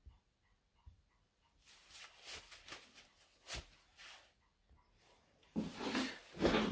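Handling noise: scattered rustling and a few knocks, then louder rustling and thumps near the end as the camera is picked up and carried, brushing against clothing.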